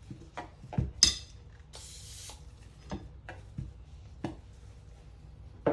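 Rifle parts and tools being handled on a workbench: a scatter of light metallic clicks and knocks, the sharpest about a second in, with one short hiss a little after.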